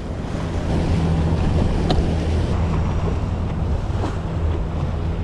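Outboard motor running with a steady low hum while the wake churns behind the boat, with wind buffeting the microphone.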